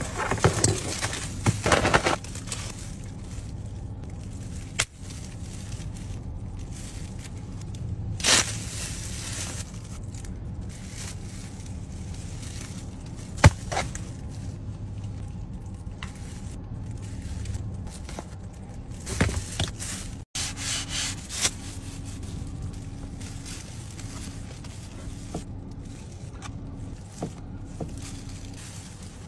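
Food and packaging handled with clear plastic gloves: scattered rustles, crackles and clicks of the gloves and a plastic takeaway container, over a steady low hum of the car cabin.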